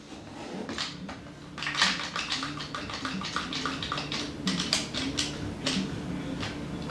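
Rapid, irregular clicking of a trigger bar clamp being squeezed tighter, starting about a second and a half in, as it bends a sinew-backed sheep's horn bow forward to train the bend.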